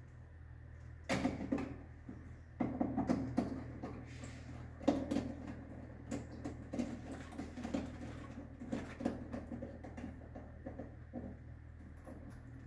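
Irregular clicks and light knocks of plastic circuit breakers being handled and repositioned in a distribution board.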